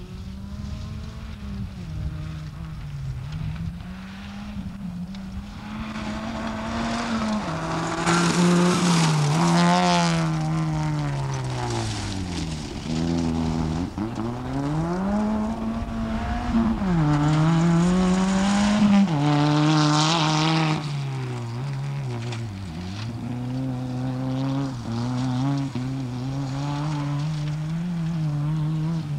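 Rally car engines revving hard, the pitch climbing and dropping again and again as the cars accelerate, brake and slide past, loudest about a third and two-thirds of the way in.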